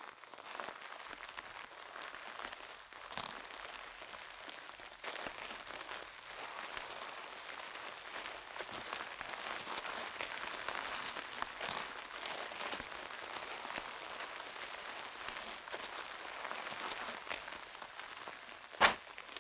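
Footsteps in flip-flops on gravel: a continuous crunching of loose stones underfoot, with one sharp, louder slap near the end.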